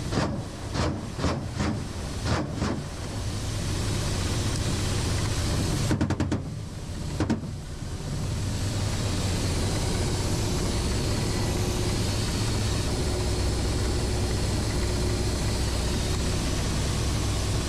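Ka-52 attack helicopter heard from inside the cockpit: the steady drone of its engines and coaxial rotors. About six sharp bangs come in the first three seconds and a rapid cluster of bangs around six to seven seconds in, which is the helicopter's own weapons firing at ground targets.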